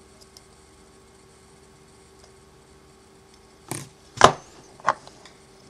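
Three sharp clicks from small hand tools, from trimming and fitting the decoder's wire leads, over a faint steady hum. The clicks come in the second half, the middle one the loudest.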